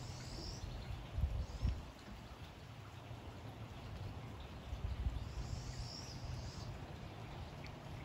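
Light spring rain falling steadily, with a songbird calling twice in short gliding high notes, once at the start and again about five seconds in. A few low rumbles come and go, the loudest just over a second in.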